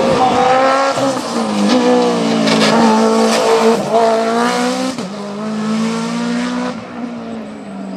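Mitsubishi Lancer prototype race car engine under full throttle, climbing in pitch and dropping back a few times as it shifts gear. The sound fades over the last second or so as the car moves away.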